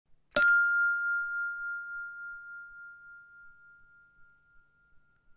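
A single struck chime: one sharp strike about half a second in, then a pure ringing tone that fades away over about four seconds.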